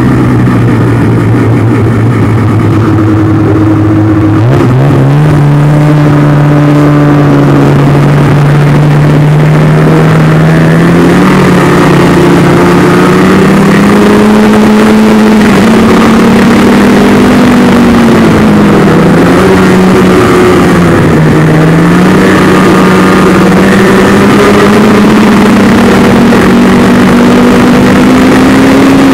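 Snowmobile engine running under way, loud and close. Its pitch steps up about five seconds in, then rises and falls as the sled speeds up and slows along the trail.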